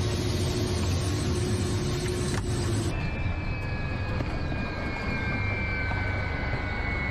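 Ka-52 attack helicopter's engines and rotors heard from inside the cockpit: a steady low drone. About three seconds in the sound changes and a thin high whine appears that slowly drops in pitch.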